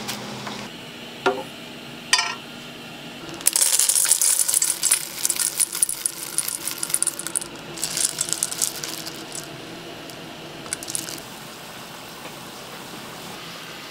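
Metal kitchenware clinking and rattling: two short ringing clinks, then about seven seconds of busy, high-pitched rattling and scraping that stops near the end.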